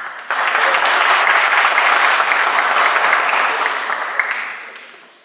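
Audience applauding: clapping starts suddenly, holds strong for about four seconds, then dies away near the end.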